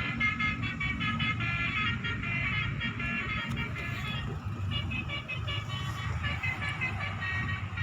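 Basuri musical bus horn playing a quick melody of short tooting notes (the 'telolet' sound), with a short break about four seconds in, over a low rumble.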